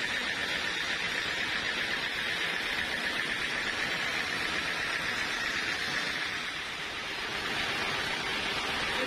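Sawmill saw cutting through a teak log: a steady, dense hissing whine, dipping slightly about two-thirds of the way through.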